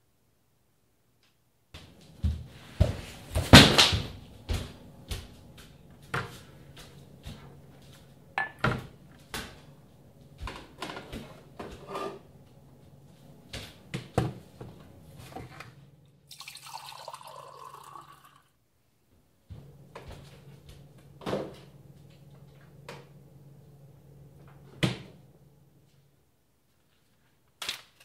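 Kitchen handling sounds: a run of knocks and clatters of things being picked up and set down, the loudest about three and a half seconds in, over a low steady hum. About halfway through, water is poured from a plastic filter pitcher into a glass for about two seconds, and a few more knocks follow.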